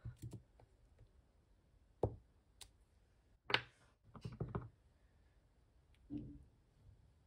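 Clear stamp blocks knocking and clicking as they are pressed onto an ink pad and onto card, then picked up and set down on the craft mat. About six short, irregular knocks, the loudest two and three and a half seconds in, with a quick cluster just after four seconds.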